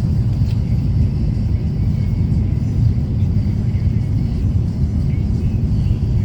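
Steady low rumble of a vehicle heard from inside, with no sudden events.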